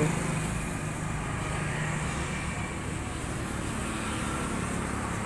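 Steady background noise: a low rumble with a faint hum, with no knocks, grinding or other distinct events.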